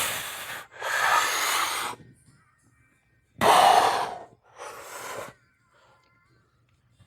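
A man breathing hard from exertion during a weight workout: two pairs of loud, rasping breaths in and out, the second pair about three and a half seconds in.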